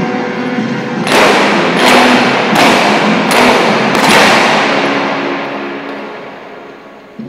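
Five heavy impact hits in the recorded dance music, about three-quarters of a second apart, each ringing on; after the last one the sound dies away over a few seconds.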